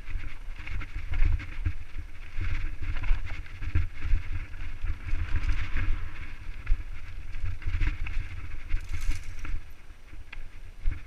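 Wind buffeting an action-camera microphone during a fast mountain-bike descent, a heavy steady rumble. Under it, tyres crunch over dirt and loose rock, and the bike gives off frequent small clicks and rattles.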